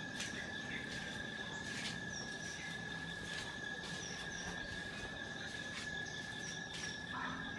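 Insects trilling steadily on one high pitch, with short, higher chirps every second or two.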